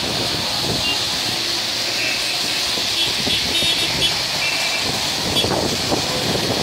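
Steady hiss of rain and traffic on a wet road, with cars passing through standing water.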